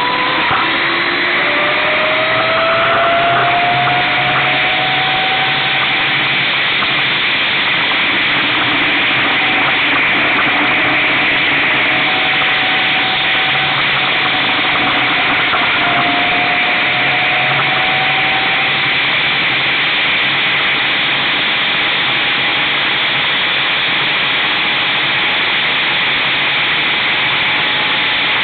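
2009 Brammo Enertia electric motorcycle ridden at road speed: a steady rush of wind and road noise, with a faint whine from the electric motor and drive rising in pitch twice as the bike speeds up.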